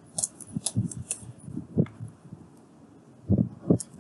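Computer keyboard typing: a run of irregular sharp key clicks as a word is typed, with a short pause partway through.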